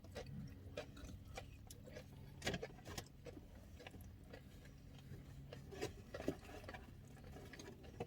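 Quiet chewing of crunchy fried chicken: scattered small crunches and clicks over a steady low hum.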